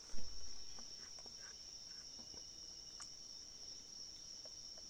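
Steady high-pitched insect chorus that continues without a break, with a brief low thump just after the start and a few faint clicks.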